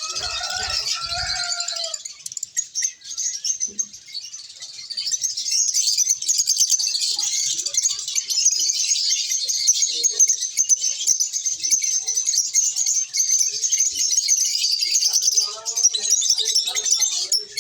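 Lovebirds chattering: a dense stream of rapid high-pitched chirps and squeaks that never lets up and grows fuller after a few seconds, with some lower calls at the start and again near the end.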